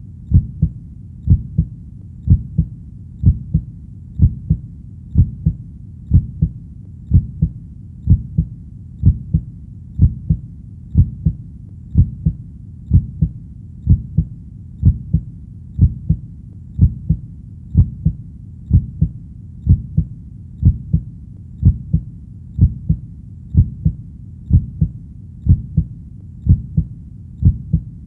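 Heartbeat at a slow, steady pace of about one beat a second, each beat a low double knock (lub-dub), over a faint steady low hum.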